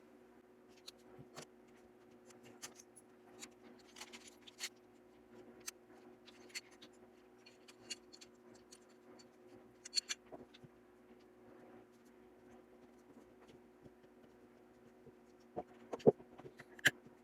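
Scattered small metallic clicks and scrapes of a Charles Daly 1911 pistol being field-stripped by hand, its slide, spring and small parts worked loose and set down. A few sharper, louder clicks come near the end.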